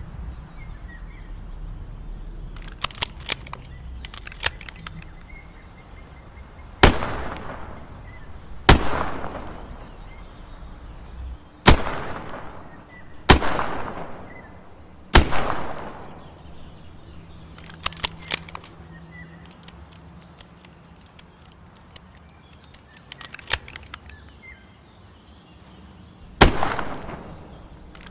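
Smith & Wesson 360J revolver firing six single shots, spaced one to three seconds apart with a long pause before the last, each with a trailing echo. Between the shots come short clusters of quick metallic clicks.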